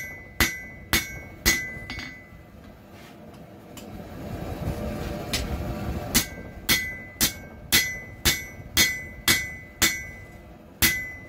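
Ball-peen hammer blows on hot leaf-spring steel laid on an anvil, about two a second, each with a short metallic ring, as the blade's bevel is forged. After a few blows there is a pause of about four seconds with only a low rushing noise, then a steady run of about ten more blows.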